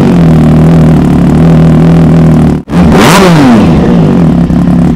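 Triumph Trident 660's three-cylinder engine, breathing through a full-system aftermarket exhaust, idling very loudly. About three seconds in the throttle is blipped once in a sharp rev that rises and falls, then it settles back to idle.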